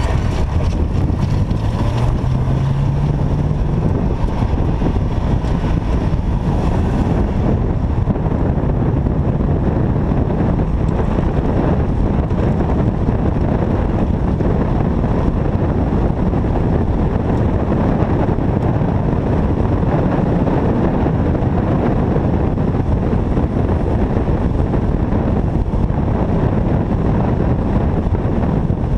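Car engine accelerating, its note rising through the first few seconds, then swamped by heavy wind buffeting on an exterior-mounted camera microphone as the car drives at speed.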